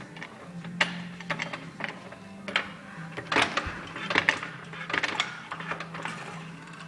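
Irregular metal clicks and knocks of hand tools and parts being handled while a wheel is taken off a lawn tractor's axle, with a steady low hum underneath.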